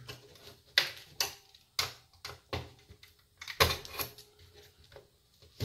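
Irregular sharp plastic clicks and knocks as a DVD player's front panel is prised off its snap-in retaining clips and handled, about ten in all. The loudest comes a little past the middle.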